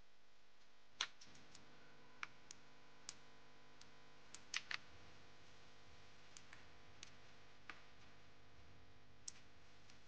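Faint, irregular clicks and light taps of tools and parts being handled in a car's engine bay. The loudest comes about a second in, and a close pair of clicks falls near the middle.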